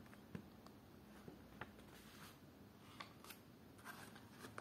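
Near silence: quiet room tone with a few faint clicks and soft paper rustles from handling a small booklet.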